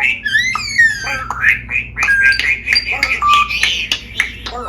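Pet parrot chattering: a rapid run of squawks, chirps and clicks that swoop up and down in pitch. Two short steady whistles come in the middle.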